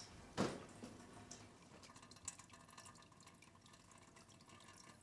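Water drops falling one at a time into a metal basin: a few separate drips, the loudest about half a second in, then fainter ticks.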